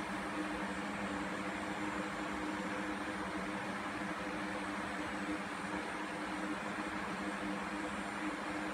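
Steady machine hum over a hiss of noise, even and unchanging, like a fan or air-conditioning unit running.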